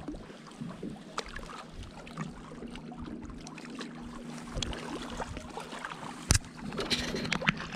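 Faint water sounds with scattered small clicks and knocks, and one sharp click about six seconds in.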